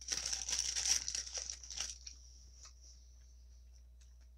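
Crinkling of the white wrapping sheet under a gyro as a hand handles it, a dense crackle lasting about two seconds, followed by a few faint light clicks.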